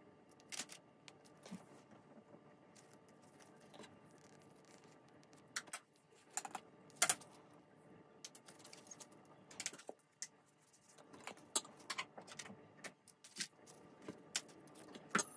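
Light, irregular clicks and taps of hands handling foam sheet flower pieces on a table, over a faint steady hum.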